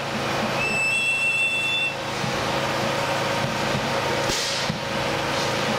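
Heavy road traffic running close by, a steady rumble with a high, steady squeal lasting about a second and a half near the start and a short hiss about four seconds in.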